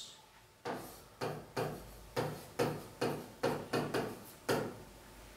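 Pen strokes on a display screen while a word is handwritten: about ten short taps and scrapes, roughly two a second.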